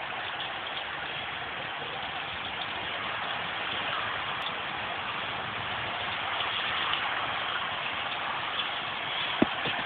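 Steady hiss of wet snow falling and melting as it lands on gravel and concrete, with one small knock about nine seconds in.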